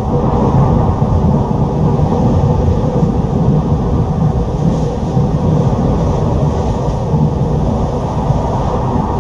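Strong storm wind blowing, a loud, steady rumble heavy in the low end.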